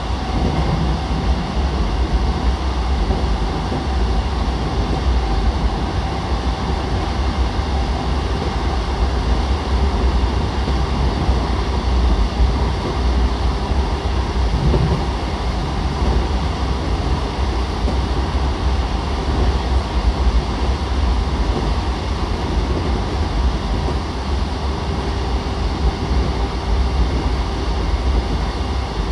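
JR East E233-7000 series electric train heard from inside a passenger car while running steadily between stations: a continuous deep rumble of wheels on rail and car-body noise, with a faint steady whine above it.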